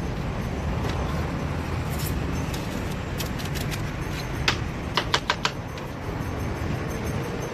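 Knife tapping and chopping pineapple on a plastic cutting board: scattered sharp taps, with a quick run of four or five about five seconds in, over a steady low rumble of street traffic.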